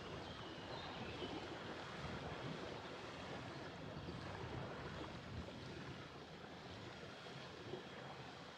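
Steady rush of water and wind aboard a yacht moving slowly along a canal, with wind buffeting the microphone.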